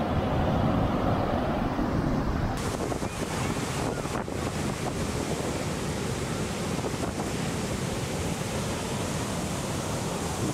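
Heavy storm surf breaking and washing up the beach as a steady rushing roar, with strong wind buffeting the microphone; the sound gets brighter and hissier about two and a half seconds in.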